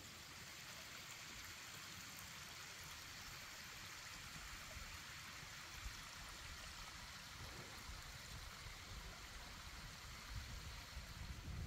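Faint, steady rush of a small woodland creek running over its stony bed.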